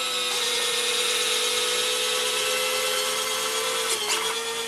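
Small DC gear motors driving the jack-screw actuators of converted Robart 630 retracts, lowering the landing gear: a steady electric whine from the two actuators running in stagger mode, dropping slightly in pitch about four seconds in.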